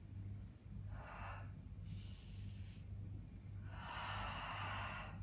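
A woman breathing audibly through a warm-up stretch. There is a short breath about a second in, a fainter one around two seconds in, and a longer, louder breath near the end, over a steady low hum.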